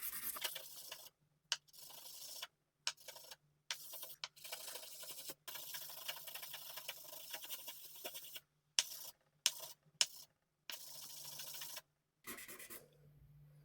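Sandpaper rubbed by hand over a binocular's glass lens, grinding out scratches: a scratchy rasp in runs of a second or two with short breaks between them.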